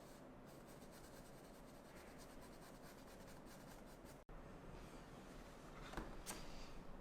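Faint scratchy rubbing of an art tool stroking across a painting or drawing surface, with a brief cut-out about four seconds in and two light taps near the end.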